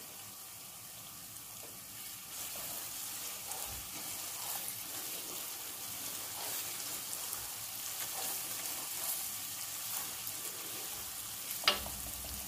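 Oily sauce sizzling in a large stainless steel pot on a gas burner, with a wooden spoon stirring through it. A sharp knock comes near the end.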